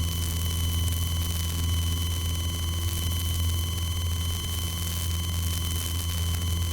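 Piper Warrior's four-cylinder Lycoming engine at full climb power, a steady low drone heard inside the cabin under an even hiss, with a faint steady high whine above it.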